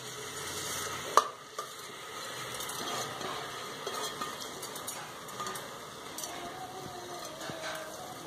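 Diced vegetables sizzling steadily in hot oil in a pressure cooker as washed rice is poured in from a steel bowl and stirred, with one sharp metal clink about a second in.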